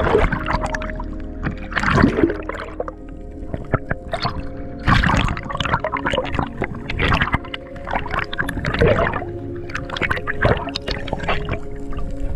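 Water gurgling and bubbling against an underwater action camera, in surges every couple of seconds, over a steady hum.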